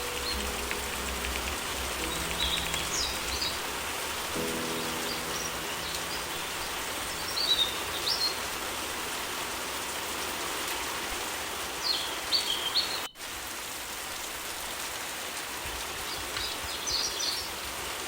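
Steady rain with short bird chirps breaking in about five times. Faint held piano notes sound near the start and again around four seconds in. The whole track drops out for an instant about thirteen seconds in.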